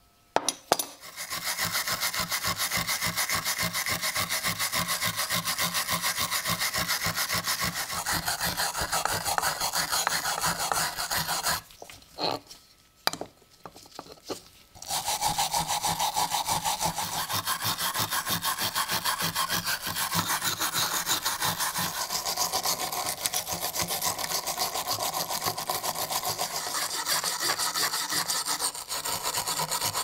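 Hand abrasion of the rusty steel on an old switchblade knife: fast, even back-and-forth scraping strokes, kept up for long stretches. About halfway they stop for a few seconds, with a few light clicks of the knife being handled, then start again.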